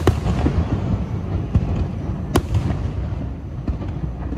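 Aerial fireworks display with shells bursting overhead: a sharp bang right at the start and another a little over two seconds in. Smaller cracks and a continuous low rumble run between them.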